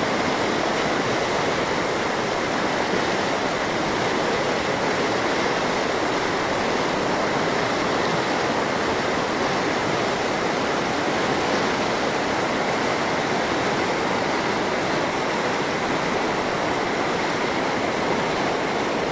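Muddy river in full flood rushing past the bank: a steady, unbroken noise of fast, turbulent water.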